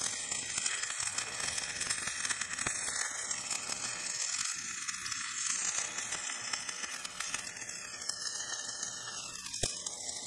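Stick welder's arc sizzling and crackling steadily as it runs a bead, welding a half-inch steel grouser bar onto a crawler's steel track shoe.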